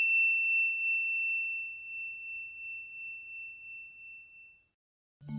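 The ringing tail of a single struck bell-like chime: one high clear tone with a slight waver, fading away until it dies out about four and a half seconds in. Right at the end a low musical drone begins.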